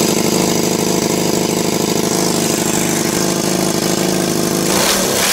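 Honda CM400's air-cooled parallel-twin engine idling steadily; about four and a half seconds in, the even idle breaks up and turns irregular.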